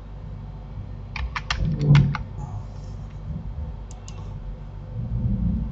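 Computer keyboard keys being pressed: a quick run of about seven keystrokes a little over a second in, then two more near four seconds, with a dull low bump at about two seconds.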